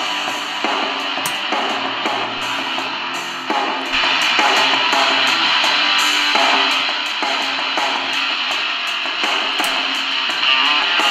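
A song with drums and guitar playing through the Tecsun PL-450 portable radio's built-in speaker, received on FM from a low-power FM transmitter fed by an MP3 player.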